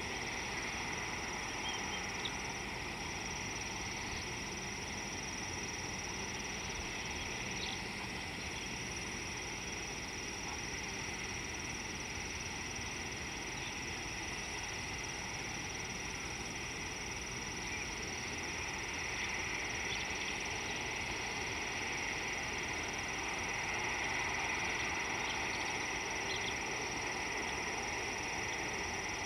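Steady outdoor ambience: a continuous high-pitched chorus of calling insects over a constant hiss, growing a little louder about two-thirds of the way through.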